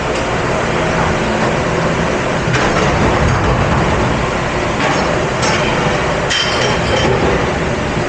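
Commercial dish-room machinery running with a steady loud rumble and hiss. Dishes and racks clink and clatter a few times over it, most around six to seven seconds in.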